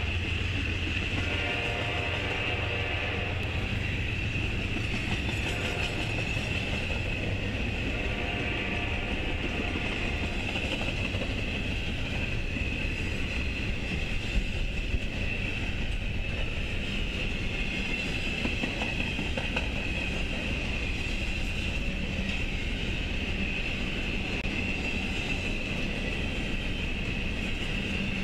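Double-stack intermodal container freight train rolling past close by: a steady rumble and clatter of wheels on rail, with a steady high whine over it. A couple of sharp clanks come about halfway through.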